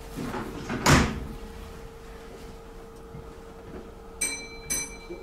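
Inside a Kintetsu 80000 series train's driving cab, a door thumps shut about a second in, after some lighter knocking, over a steady hum from the cab equipment. Near the end come two short electronic beeps about half a second apart.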